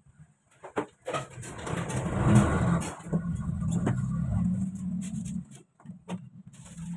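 A motor vehicle's engine passing close by, rising about a second in and fading out past the middle, with a few knocks and rustles of a cardboard box being handled and opened.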